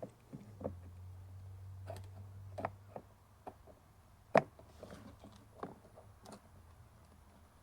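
Scattered light clicks and knocks of hands handling a plastic side-camera housing and its screws during fitting, with one sharp click about four seconds in.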